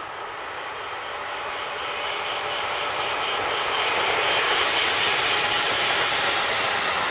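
Electric freight train approaching and passing: an SNCF Fret electric locomotive and its wagons of lorry semi-trailers rolling on the rails, the noise growing steadily louder until the locomotive goes by about four seconds in, then holding steady as the wagons roll past.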